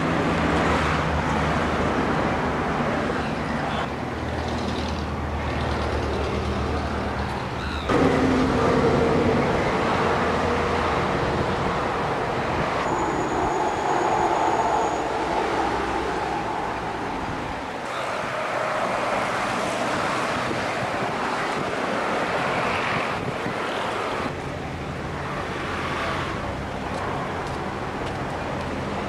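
Steady outdoor background noise with a low engine-like hum, changing abruptly about eight seconds in and again about eighteen seconds in.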